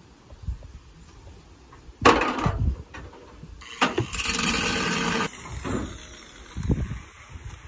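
Corded electric drill running in one steady burst of about a second, a little after four seconds in, stopping abruptly. A loud sudden noise comes about two seconds in.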